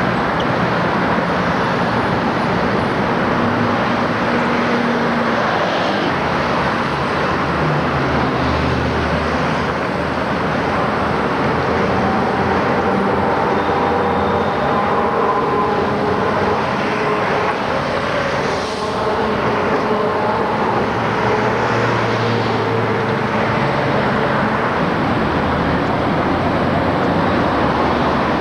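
Steady city street traffic noise: buses and cars running past, with engine hums rising and fading as vehicles go by.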